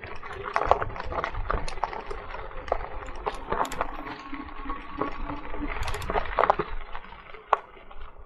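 Crooked Path Rogue e-bike ridden over a rough off-road path: an irregular run of sharp clicks and knocks as it bumps along, over a steady low rumble.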